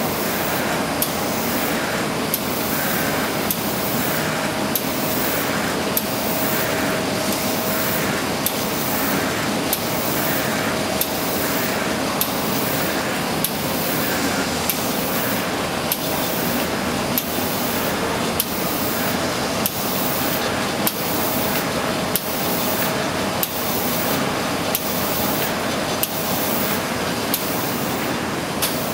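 OPP laminating machine with a chain knife cutter running at production speed: a steady mechanical hiss and hum with a regular beat about once a second and sharp clicks every second or two as the laminated sheets are cut.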